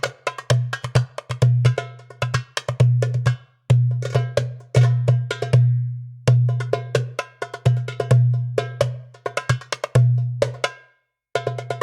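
Sampled Middle Eastern hand-drum patterns from a software instrument library: quick rhythmic strokes, with a deep ringing low tone under sharp high slaps. They play in phrases of about two to three seconds with short breaks between.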